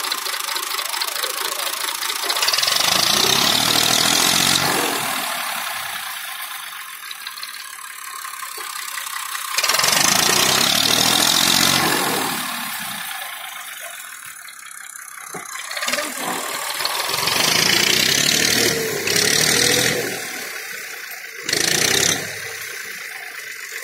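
Massey Ferguson tractor's diesel engine revving hard in three long bursts and one short one, dropping back toward idle in between, while the tractor pulls on a rope hitched to a felled tree trunk.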